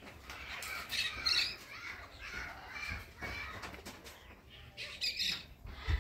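Birds calling, a run of calls over the first few seconds and another about five seconds in.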